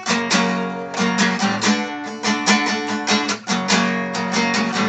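Acoustic guitar strummed in a steady rhythm of chords, an instrumental break between sung lines of a song.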